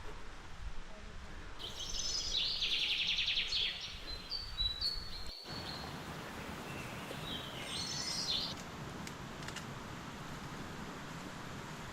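A small songbird singing: a rapid, high trilling phrase followed by a few thin whistled notes, then another short phrase a few seconds later, over a steady background hiss.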